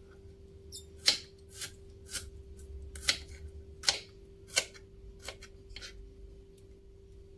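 Kitchen knife slicing shallots on a wooden cutting board: about ten crisp cuts, roughly two a second, each stroke knocking the blade against the board. The cutting stops about a second before the end.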